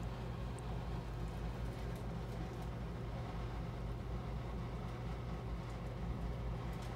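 Steady low hum of a large shop's background, with a faint hiss and a few faint ticks.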